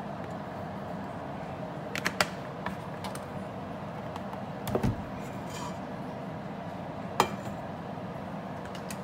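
Cooking oil being poured from a plastic bottle into an empty stainless steel stockpot, heard as handling sounds over a steady low hum: a couple of light clicks about two seconds in, a dull knock near the middle and a sharp click about seven seconds in.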